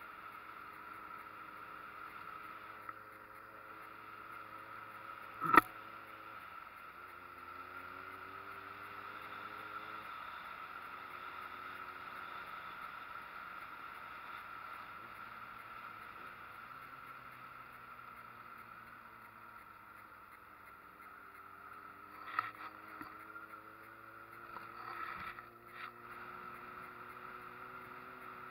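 Street motorcycle engine running on the move, its note rising and dropping with throttle and gear changes, over a steady rush of wind and road noise. A single sharp knock comes about five and a half seconds in, and a few smaller knocks come near the end.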